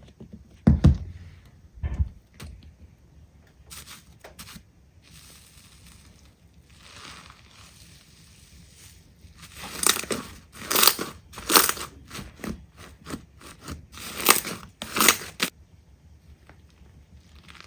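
Slime being squeezed and pressed by hand: two dull thuds near the start, then a run of sharp crackling, crunchy pops through the middle that stop suddenly.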